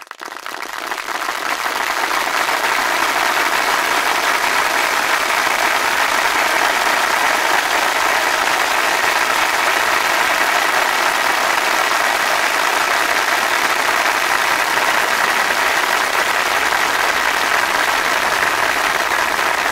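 Audience applauding in a theatre: even clapping that swells over the first couple of seconds, then holds steady.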